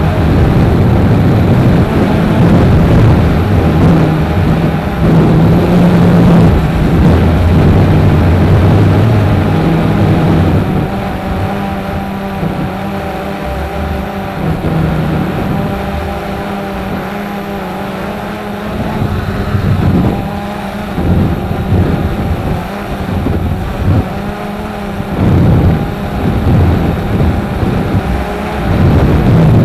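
Strong, gusty wind buffeting the microphone as a loud, uneven low rumble. It eases about ten seconds in, leaving a steadier hum beneath, and comes back in gusts near the end.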